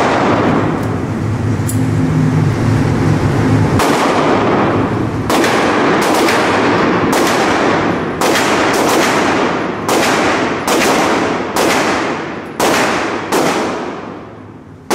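Gunshots echoing in an indoor shooting range: about a dozen sharp shots at uneven intervals, roughly one a second, starting about four seconds in, each followed by a hard reverberant tail.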